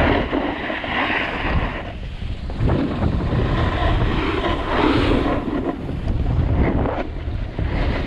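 Wind buffeting the microphone with the rushing hiss and scrape of edges sliding over snow, surging and easing in waves as the rider turns down the slope.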